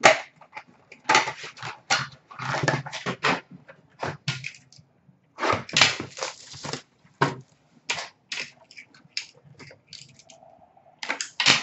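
Hockey card boxes and their packaging being handled and opened: cardboard and plastic wrap crinkling and rustling in short, irregular bursts.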